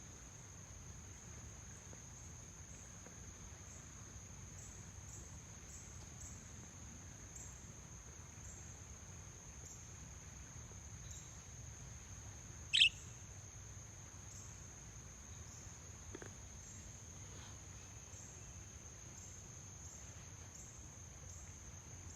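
Steady high-pitched chirring of crickets, with one short, sharp bird chirp about thirteen seconds in, the loudest moment.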